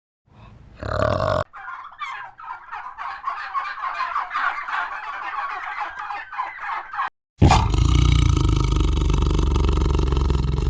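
Animal calls from three separate clips in quick succession: a short low call, then several seconds of rapid, dense poultry chattering in the manner of gobbling, then a loud, low, drawn-out animal call near the end.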